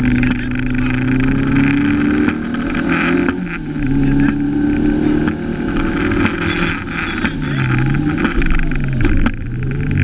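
Fiat Cinquecento 1400 rally car's engine heard from inside the cabin, its pitch climbing and dropping back several times through gear changes under hard driving, with two quick dips and recoveries near the end.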